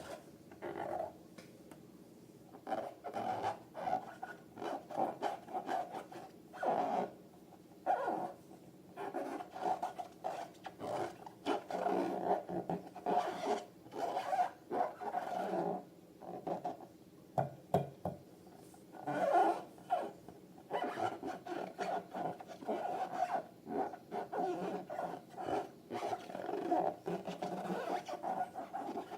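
Close handling of rubber balloons and slime: irregular rubbing, scraping and squelching in uneven bursts.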